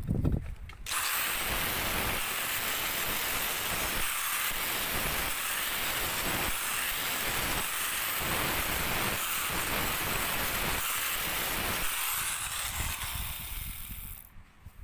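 Electric angle grinder grinding a steel channel held in a vise, a steady grinding noise that starts about a second in. Near the end the grinder comes off the work and winds down.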